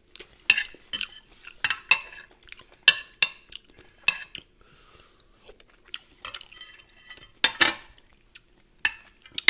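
Fork clinking and scraping against a plate while eating, an irregular string of short sharp clicks; the loudest comes about seven and a half seconds in.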